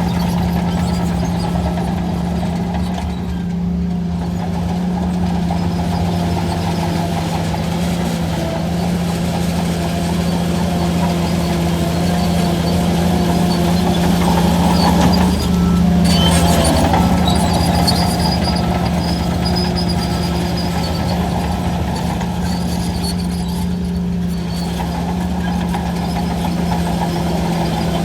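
Heavy diesel engine of earthmoving machinery running steadily at a constant low pitch. It swells louder for a couple of seconds just past the middle as it works harder.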